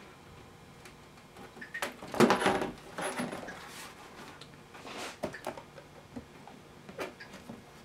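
A sheet of cardboard being handled and slid against the bench: a scraping rustle about two seconds in, the loudest part, another shorter one about five seconds in, and a couple of sharp knocks.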